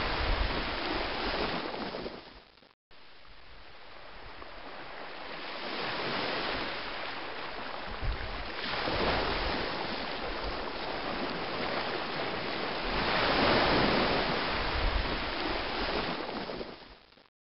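Rushing, surf-like water noise that swells and ebbs every few seconds. It cuts out for an instant about three seconds in and stops abruptly near the end.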